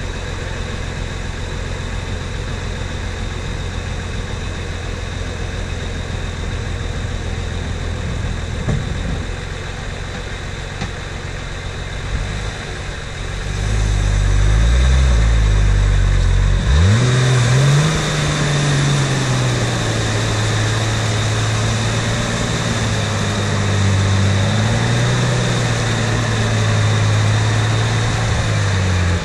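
Off-road Jeep engine idling steadily while the Jeep sits in a deep mud rut. About halfway through it revs up with a sharp rise in pitch, then keeps running hard under load as the Jeep pulls forward out of the mud.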